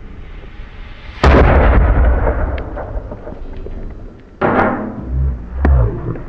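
A big firecracker going off under a metal bucket: one very loud bang about a second in that echoes and dies away over a couple of seconds, blasting the bucket high into the air. About three seconds later comes a second sharp crash, followed by low thuds.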